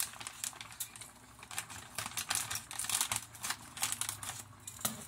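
Crinkling plastic bag of frozen mixed vegetables being handled, then scissors snipping the bag open: a run of sharp crackles and clicks.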